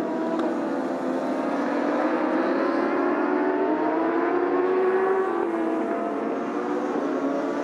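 Several racing motorcycle engines accelerating hard together, their overlapping pitches rising steadily.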